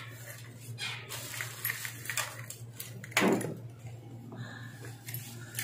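Keys jangling and a door lock and handle clicking, with scattered rattles of handling, and one louder sound about three seconds in that falls quickly in pitch. A steady low hum runs underneath.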